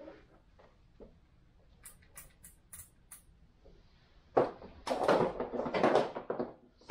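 A few sharp clicks, then, about four seconds in, roughly two seconds of loud rustling and scraping handling noise.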